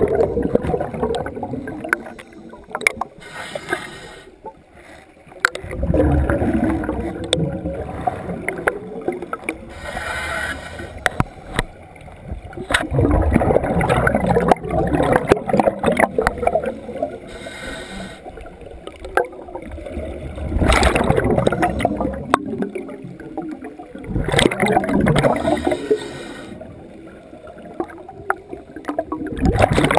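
Scuba diver breathing through a regulator underwater: loud gurgling bursts of exhaled bubbles every five seconds or so, with a fainter hiss of inhalation between them.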